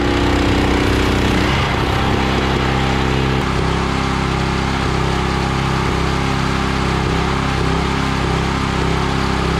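Pressure washer's small air-cooled engine running steadily under load while the wand sprays a hissing jet of water. The washer is still not working quite right.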